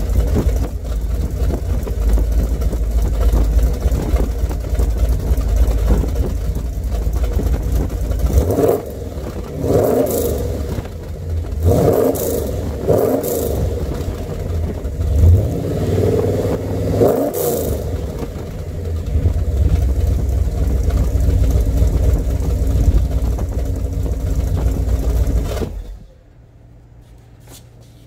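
1974 Chevrolet Corvette's small-block V8, stroked to 383 cubic inches, heard from behind at the exhaust: idling with a deep rumble, then given several short revs from the driver's seat before settling back to idle. The engine is switched off about two seconds before the end.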